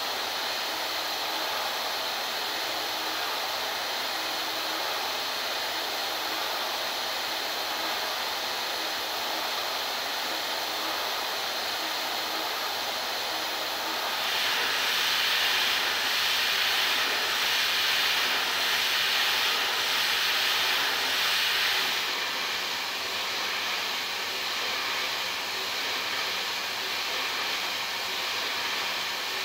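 CNC machining centre milling 4140 steel with a half-inch solid-carbide variable-pitch end mill: a steady hiss of cutting and machine noise. The hiss grows louder and brighter about halfway through, holds for some eight seconds, then drops back.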